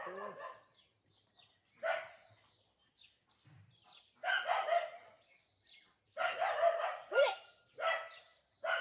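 A dog barking repeatedly, in short runs of barks a second or two apart, with a bird calling.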